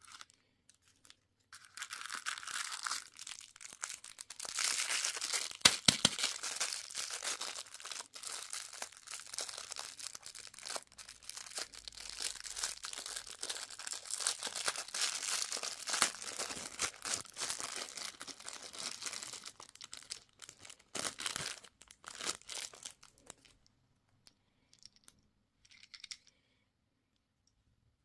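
Candy wrapper being crinkled and torn open by hand: a dense, crackling rustle with sharp snaps that runs about twenty seconds, then stops, leaving a few faint rustles.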